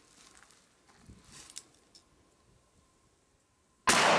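A single loud, sudden shot from a Smith & Wesson Model 10 .38 Special revolver near the end, its report starting to fade slowly.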